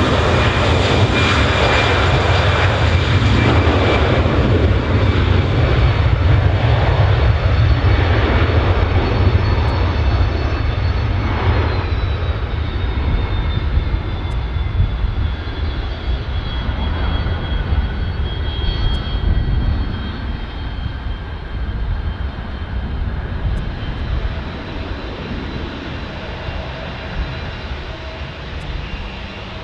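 Twin-engine jet airliner's turbofans at takeoff power: a deep roar with a high whine that drops in pitch about twelve seconds in as the jet passes, then fades slowly as it climbs away.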